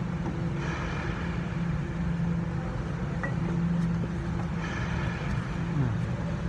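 Steady low mechanical hum from a running machine or engine, holding one pitch throughout.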